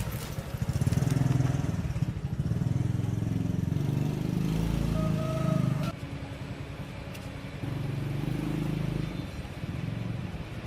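Small chainsaw engine running, its speed and loudness changing in steps several times: dropping back about six seconds in and picking up again soon after.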